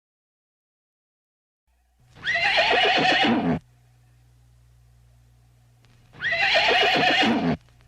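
A horse whinnying twice, about four seconds apart, each neigh lasting about a second and a half.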